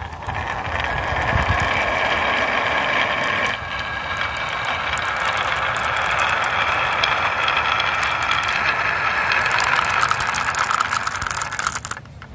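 Glass marbles rolling in a long train down the wavy groove of a wooden marble slope: a continuous rattling roll with marbles clicking against each other. The clicks come thick and fast in the last few seconds as the marbles pile into a toy truck, and the sound stops suddenly near the end.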